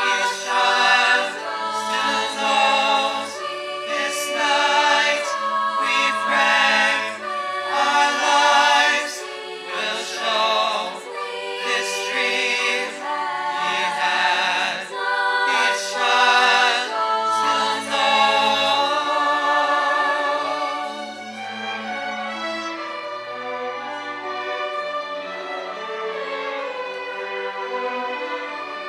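A choir singing with a youth string orchestra. About two-thirds of the way through, the voices drop out and the strings carry on more quietly.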